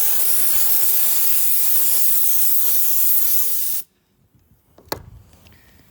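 Compressed-air blow gun blasting air into a typewriter's mechanism to blow out dirt: a loud, steady hiss for almost four seconds that cuts off sharply. A single sharp click follows about a second later.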